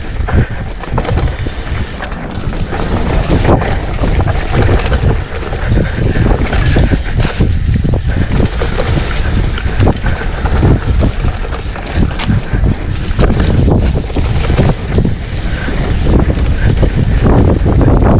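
Wind buffeting the microphone of a mountain bike descending a dirt trail, over steady rumble from the tyres, with frequent knocks and rattles from the bike over bumps.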